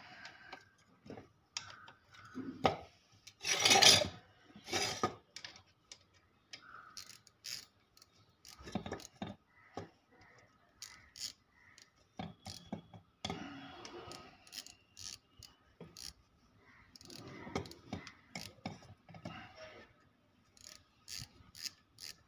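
A 6 mm Allen key turning the Allen bolts on a high-pressure plunger pump's metal housing, tightening them evenly in turn during reassembly: irregular metal clicks, scrapes and short rattles, the loudest about four seconds in.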